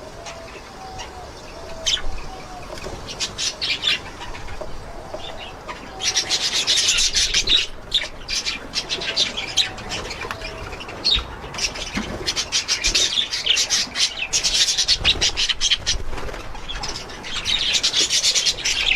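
Budgerigars chattering: fast, high chirps, clicks and warbles, sparse at first and then a dense, busy chatter from about six seconds in.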